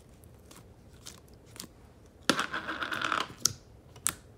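Thick, glossy white slime, a little sticky, being poked and squished by hand in a plastic tub: scattered sticky clicks and crackles, with a louder stretch of squishing a little past two seconds in that lasts about a second.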